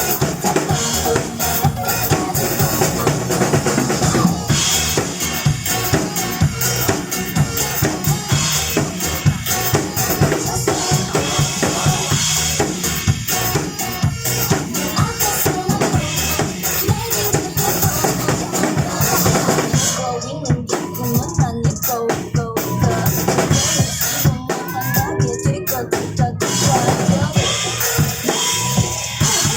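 Drum kit played live along to an upbeat K-pop backing track, with a steady bass drum, snare and cymbals over the recorded song. About two-thirds of the way through, the cymbals drop out for a few seconds in a thinner breakdown before the full beat returns.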